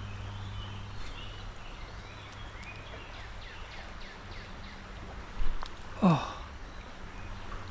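Steady rush of a shallow creek flowing, with faint high chirps early on and two dull thumps a little past the five-second mark.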